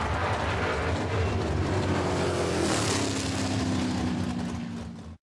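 Two drag-racing muscle cars running hard down the strip. Their engines make a loud, rough sound that drops in pitch about halfway through, then settles to a steadier lower note before cutting off suddenly near the end.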